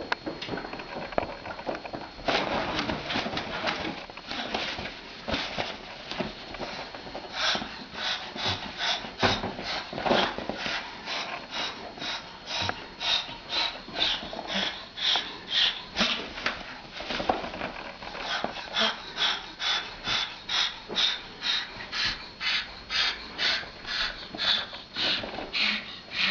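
A pet animal making a long series of short, breathy, hissing noises. They come irregularly at first, then settle into an even rhythm of about two a second.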